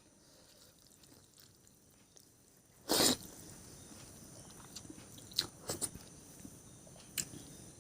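Close-up eating sounds of a person chewing and biting food. About three seconds in there is one loud, short burst, and after it come a few sharp clicks and smacks.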